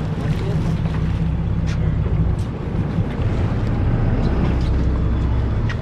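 A boat engine running steadily with a low rumble, with wind noise on the microphone.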